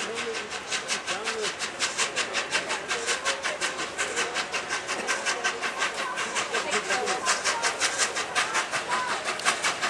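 Peppercorn A1 Pacific steam locomotive 60163 Tornado approaching under steam, its three-cylinder exhaust chuffing in a fast, even beat of about five a second.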